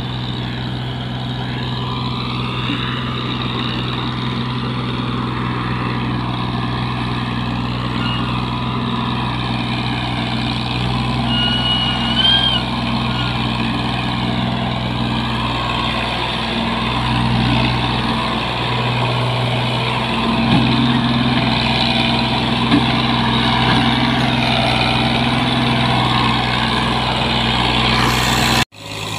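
Diesel tractor engine running steadily under load as it pulls a heavily loaded sugarcane trolley, with a wavering higher sound above it and a brief rising chirp about twelve seconds in. The sound drops out suddenly for a moment near the end.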